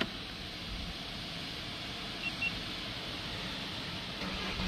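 Steady quiet background hiss with a click at the start and a brief faint high beep about halfway through. Right at the end a car engine, a Peugeot 3008 that would not crank before its battery-protection (BPGA) unit was replaced, begins to start, with a low rumble rising.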